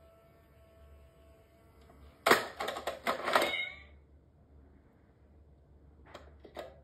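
Box-shaped cat coin bank's motorised paw mechanism clattering, a quick run of rapid clicks and knocks lasting about a second and a half, with a sharp snap at its start. Two short clicks follow near the end.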